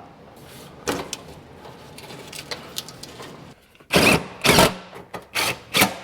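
Metal parts of a pressure washer's heater housing clattering and knocking as it is put back together: scattered clicks at first, then a run of short, loud clattering bursts in the second half.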